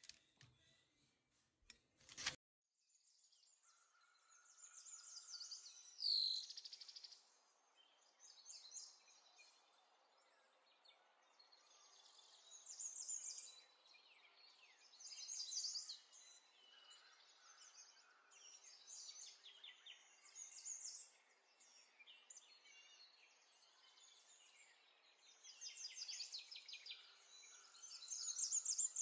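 Small birds chirping and trilling in a continuous chorus of rapid high notes, with one louder down-slurred call about six seconds in. A single sharp click comes about two seconds in, just before the birdsong begins.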